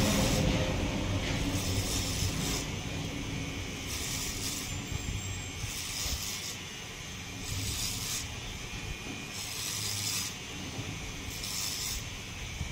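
Electric hair clipper working through short hair in repeated strokes: a rasping hiss comes about every second or so over a faint motor hum that comes and goes.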